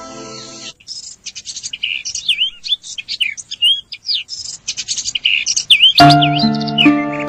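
A wild bird calling in a rapid series of sharp chirps and quick slurred whistles, between stretches of background music that stops about a second in and starts again near the end.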